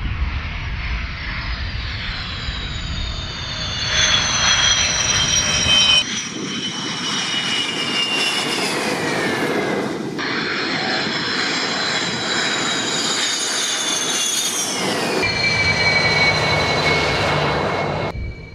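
Sukhoi Flanker fighter jets' turbofan engines: a high turbine whine over a rumble, sliding down in pitch and dropping steeply twice as the jets go by. The sound changes abruptly at several cuts.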